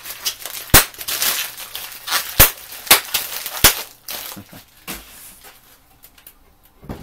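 Large industrial bubble wrap crinkling as it is pulled and handled, with four sharp pops of bubbles bursting in the first four seconds, then a few quieter knocks.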